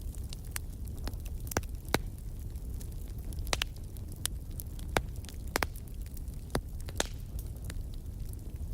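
Wood fire crackling in a fireplace: irregular sharp pops and snaps over a steady low rumble of the flames, the loudest pops about two and five seconds in.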